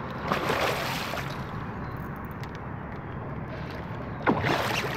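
Water sloshing and splashing against the side of a small boat as a hooked musky churns at the surface by the landing net. There are two louder splashes, one just after the start and one near the end.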